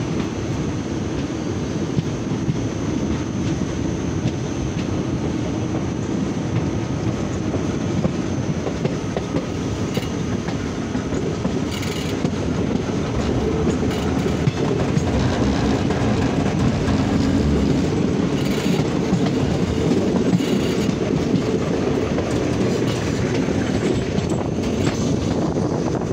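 Passenger train running on the track, heard from on board: a steady rumble of wheels on rails, with occasional clicks.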